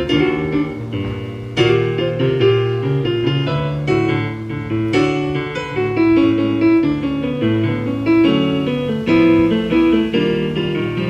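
Keyboard piano playing chords and melody, with strong struck chords about a second and a half in and again around five seconds in.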